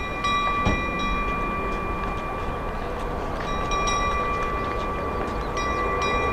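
Jet airliner engines whining steadily: several held high-pitched tones over a low rumble, starting abruptly.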